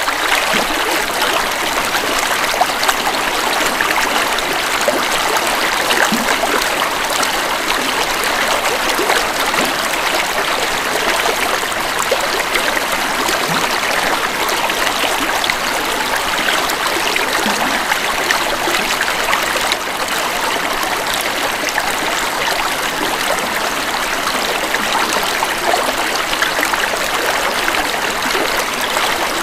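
A forest river flowing over rocks: a steady rush of running water with small splashes and gurgles.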